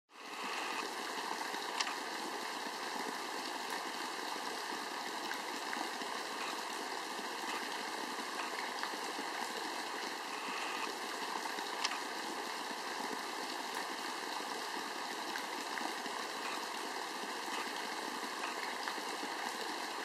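Shallow forest creek running steadily over stones, an even rush of water, with two brief sharp clicks.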